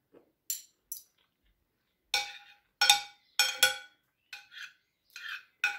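Metal fork and spoon clinking against a plate while food is scooped up: about ten short clinks, each with a brief ring, the loudest in the middle.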